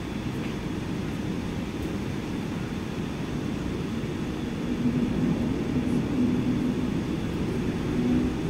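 Cabin noise of a Boeing 747-8 taxiing slowly onto the runway: a steady low rumble, with a low hum joining about halfway through as it grows slightly louder.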